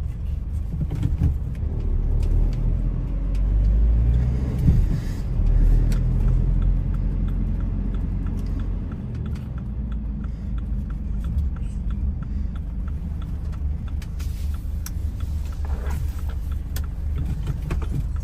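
Vehicle driving through town, heard from inside the cab: a steady low engine and road rumble that swells for a few seconds near the start, with a run of light, evenly spaced ticks in the middle.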